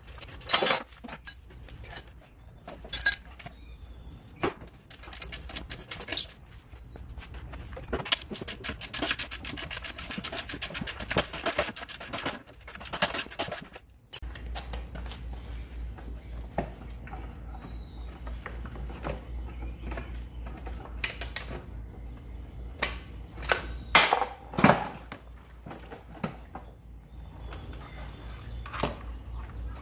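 Socket ratchet clicking in quick runs as the engine-mounting bolts are undone from the underside of a lawn mower deck, with scattered metal clinks and knocks of the tool against the deck.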